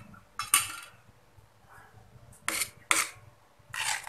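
Metal ladle scraping and clinking against a metal wok as it stirs the soup, in about four short strokes, the last one a little longer.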